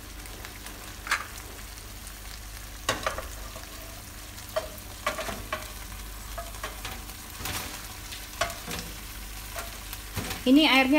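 A spatula scraping and knocking chicken wings out of one non-stick pan into another, with irregular clicks and scrapes over a steady sizzle of chili-tomato sauce simmering in the wok.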